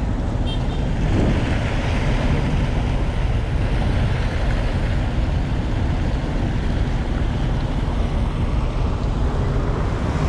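Fountain jets splashing steadily into a basin, an even rush of water, over the low rumble of passing cars and scooters.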